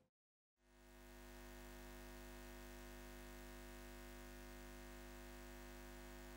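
Near silence: a brief dead gap, then a faint steady hum of several fixed tones fades in and holds.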